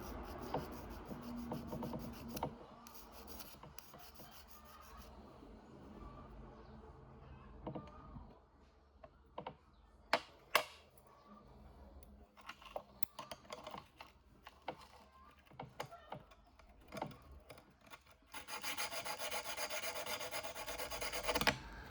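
Small abrasive sharpening stone rubbed against the steel prongs of a three-prong pole-spear paralyzer tip. Short runs of quick scraping strokes are broken by scattered light ticks and taps, and a steady spell of rapid rubbing comes near the end.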